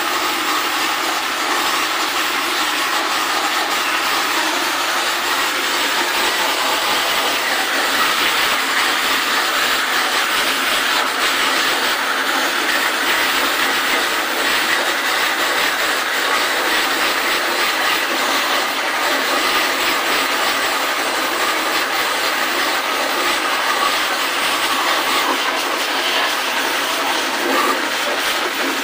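High-pressure water jet spraying onto a window-type air conditioner's coil and metal chassis as it is washed. It makes a steady, loud hiss with no breaks.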